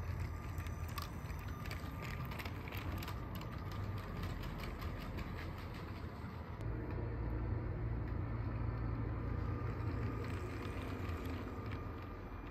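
Motorised Lego train running along plastic Lego track, its motor and gears whirring. Many quick clicks come through in the first few seconds. About halfway through a steadier, louder hum takes over, and it eases off near the end.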